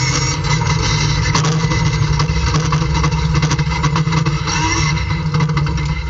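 Race car's engine and Samsonas five-speed dog-box gearbox heard from inside the stripped cabin, in second gear and coming off about 5,000 rpm down toward idle as the car slows. A gear whine glides up and down in pitch near the end, over many sharp ticks of loose gravel.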